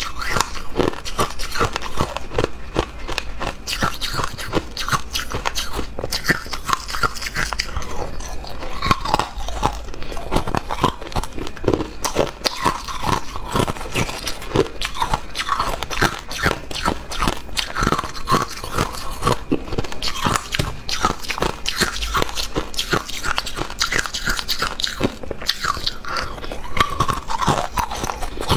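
Hard ice being bitten and crunched between the teeth, close to a clip-on microphone: a continuous run of sharp cracks and crunching.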